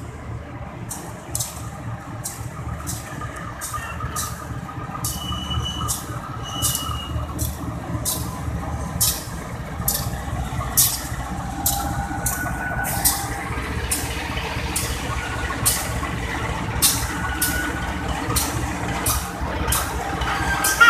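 Diesel locomotive engine rumbling as the locomotive rolls slowly closer, growing louder, with a few brief high squeals of wheels or brakes and many short sharp ticks.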